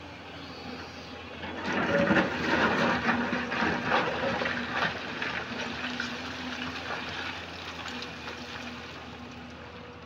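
JCB tracked excavator's diesel engine running under load while its bucket digs into a heap of broken rock. From about one and a half seconds in to about five seconds, stones scrape and clatter loudly. After that the engine works on steadily.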